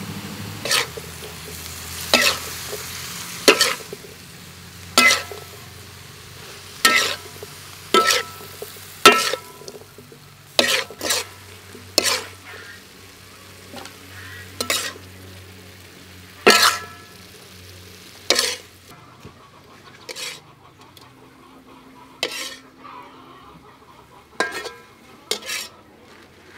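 Metal spatula scraping and knocking against a metal wok while stir-frying shrimp and cauliflower, with food sizzling underneath. The strikes are sharp and ringing, about one a second, and the sizzle dies down about two-thirds of the way through.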